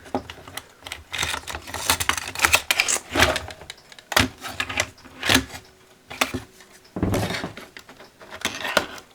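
Irregular clicks, taps and knocks, with some rustling, of objects being handled close to the microphone.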